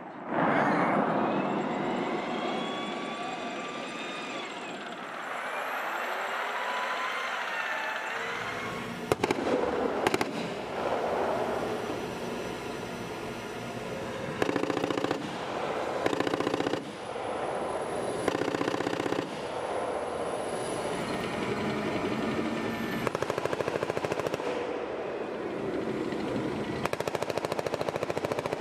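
M1 Abrams tanks driving: the whine of the gas-turbine engine, gliding up and down in pitch in the first few seconds, over the rapid clatter of steel tracks that comes in long runs later on.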